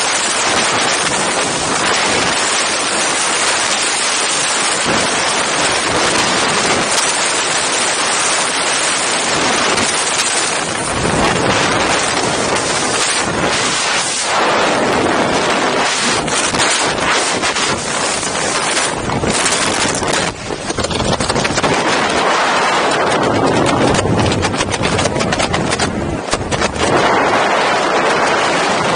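Loud, steady rush of freefall wind battering the camera microphone during a skydive, turning more uneven and gusty in the second half, when the parachute opens.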